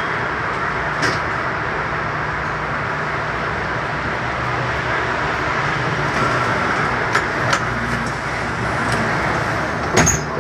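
Rental-car shuttle bus driving at low speed, heard from inside the cabin: a steady engine hum and road noise, with a few light clicks and rattles.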